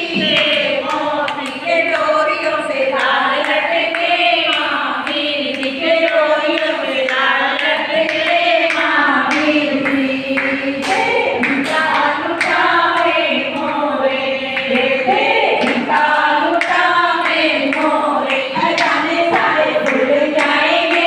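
Group of women singing a Jain badhai geet, a devotional celebration song, with hand claps along with the song.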